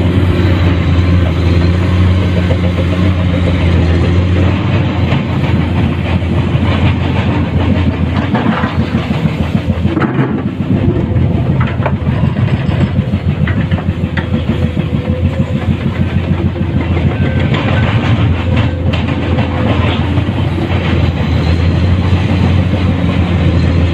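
Komatsu PC210-10 hydraulic excavator's six-cylinder diesel engine running steadily under working load while digging. Scattered knocks and scrapes come through, mostly in the middle of the stretch.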